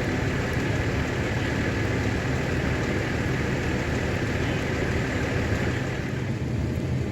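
A motor vehicle's engine running steadily: a constant low hum under an even hiss.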